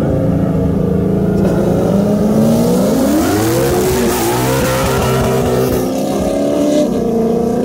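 Two race cars, a red Ford Mustang and a yellow sports car, launch side by side. Their engines rev up in a rising note from about two seconds in, with a loud rush of exhaust and tyre noise as the Mustang passes close by, then hold a steadier note as they pull away.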